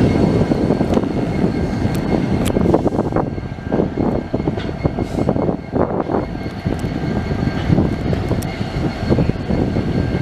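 CN diesel freight locomotives passing close by over a railway bridge: a loud, steady engine rumble with scattered sharp clacks from the wheels on the rails.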